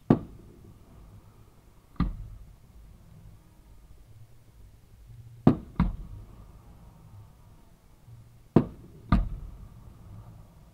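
Fireworks going off: six sharp bangs, one at the start, one about two seconds in, a quick pair around five and a half seconds and another pair near the end, each trailing off in an echo.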